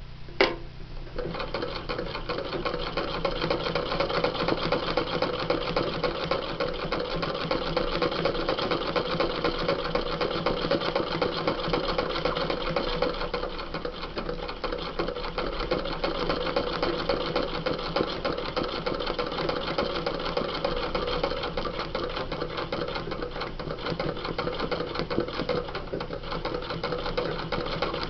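Sewing machine stitching fast and continuously through denim and a tissue-paper pattern for free-motion embroidery: a rapid rattle of needle strokes over a steady motor hum, with small swells as the speed varies. A sharp click comes about half a second in, as the stitching gets going.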